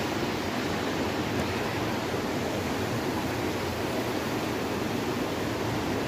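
Steady rushing of a waterfall and stream water running over rocks.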